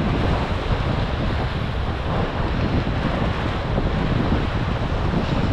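Wind buffeting the microphone in steady gusts, over the wash of sea surging against the rocks.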